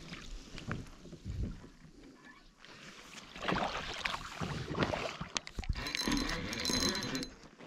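Irregular splashing, knocks and rattles as a snook is brought alongside a kayak and landed with a landing net.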